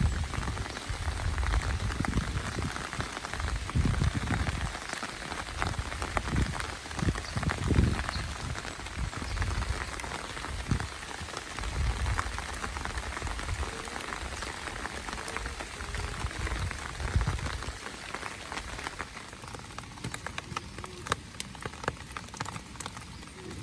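Rain pattering on a surface: a dense hiss of drops with many individual drops ticking sharply. Irregular low rumbles come and go through the first two-thirds, then stop, and the rain thins to sparser, separate drips near the end.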